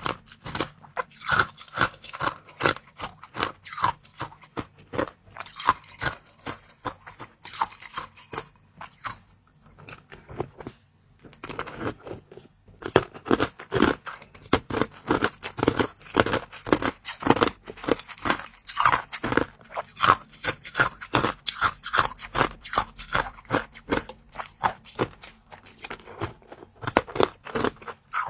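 Close-up eating sounds: crisp food being bitten and chewed, with dense, irregular crunches. There is a quieter pause of a few seconds about a third of the way through.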